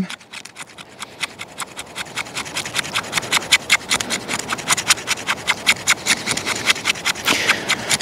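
SK85 carbon-steel blade of a Work Tuff Gear Klapatche knife scraping a stick of fatwood, quick rasping strokes several a second that grow louder over the first few seconds. It is shaving off fine resinous scrapings as tinder for a ferro rod.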